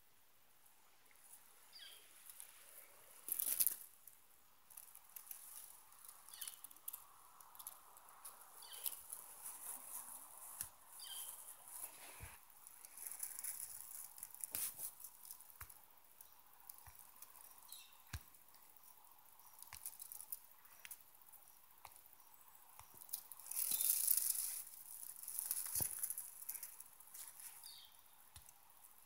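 Grass rustling and phone handling noise as the camera moves close through the grass: scattered soft clicks and brushing, with louder rustles a few seconds in and about three-quarters of the way through.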